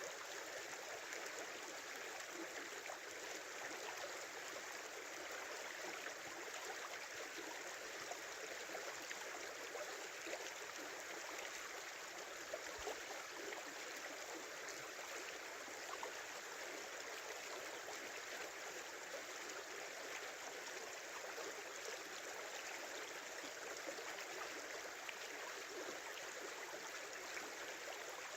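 Small river running, a steady rush and babble of flowing water.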